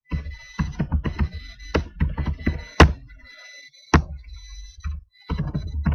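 Computer keyboard being typed on: a quick run of key clicks and knocks with a dull thump to them, with three harder strikes about a second apart in the middle.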